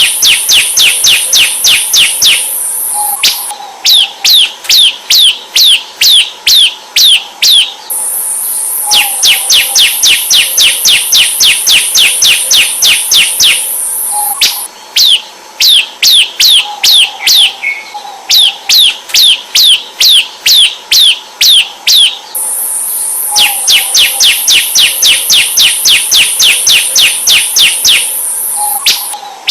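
Bar-winged prinia (ciblek semi) calling in long runs of rapid, sharp downward-sweeping chirps, about five a second, with short pauses between runs. A steady high hiss comes and goes underneath.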